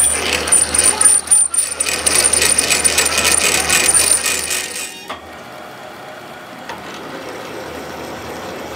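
A drill bit in a lathe's tailstock cutting into the centre of a spinning steel axle end: a steady high-pitched squeal over an uneven metallic clatter. About five seconds in the cutting stops abruptly, leaving the lathe running more quietly.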